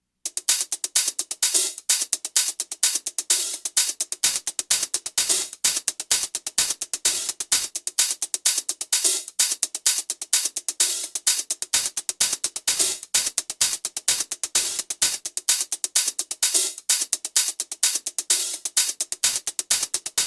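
Programmed electronic hi-hat pattern playing in a loop, a fast run of short bright ticks, processed with Ableton's Erosion effect to add noisy grit.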